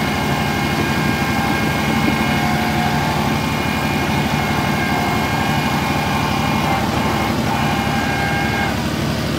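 Compact tractor engine running steadily, heard from the operator's seat as it drives a loader over a snow-covered driveway. A steady high whine rides over the engine and cuts off near the end.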